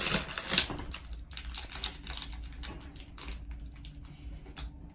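Plastic film wrapper of a convenience-store rice ball crinkling and crackling as it is pulled open: a scatter of sharp crackles, loudest in the first half-second.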